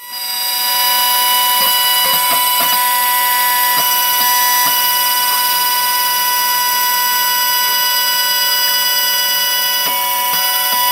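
Roland desktop milling machine's spindle motor running at high speed with a steady whine as the bit mills the copper of a PCB, with a few faint ticks from the machine.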